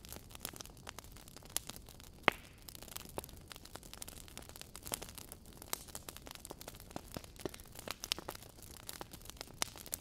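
Burning logs in a fireplace crackling: irregular sharp pops and snaps over a low hiss. The loudest snap comes a little over two seconds in.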